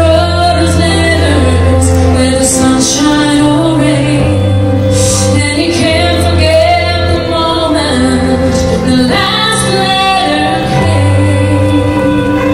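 A woman singing a slow ballad live into a microphone, over accompaniment with long held bass notes that change every couple of seconds.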